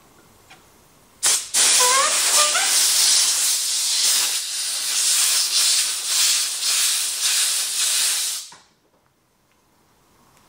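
Compressed-air blowgun hissing as it blows air under a rubber motorcycle handlebar grip, inflating the grip so it slides onto the bar. A short blast about a second in, then a steady hiss of about seven seconds with a few brief squeaks near its start, cut off suddenly.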